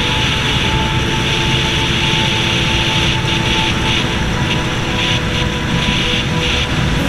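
Steady wind rush on the microphone with a Suzuki sport bike's engine running at a constant highway cruising speed, a few faint steady engine tones under the noise.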